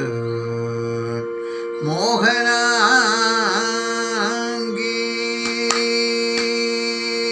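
A man singing a Kathakali padam in Carnatic style over a steady drone. A low held note ends about a second in, then a sung line with quick wavering pitch ornaments runs for a few seconds. A few sharp taps come near the end.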